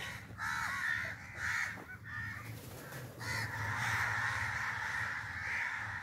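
A flock of crows cawing. The calls come separately at first, then about halfway through they overlap into a continuous chorus of many birds.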